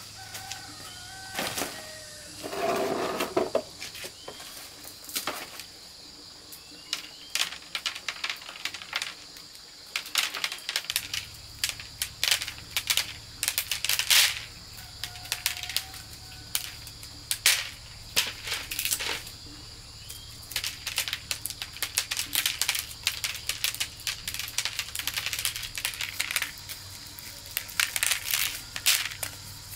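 Irregular clicking and light knocking, at times several a second, over a steady faint high whine, with a low steady hum that starts about a third of the way in and a few short high chirps.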